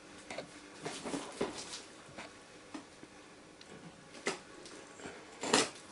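Kitchen knife slitting the packing tape along a long cardboard box, with scattered taps and scrapes of hands handling the cardboard; the loudest, a short scrape of the blade, comes near the end.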